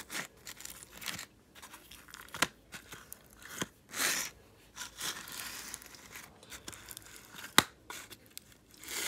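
Hands squishing and poking slime packed with tiny foam balls in a clear plastic tub: irregular crackly, sticky squelches with a few sharp clicks, the loudest about three quarters of the way through.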